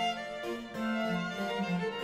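Two baroque violins playing over cello and harpsichord continuo, a steady run of held and changing notes.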